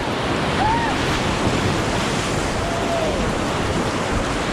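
Whitewater rapids rushing steadily around a canoe, a loud even roar of churning water, with wind on the microphone.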